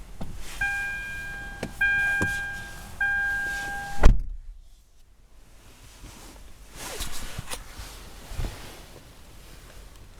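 Lexus ES350 warning chime sounding three times in a steady repeating tone, the alert that the door is open while the gearshift is stuck short of Park. A loud thump about four seconds in ends it, followed by faint clicks.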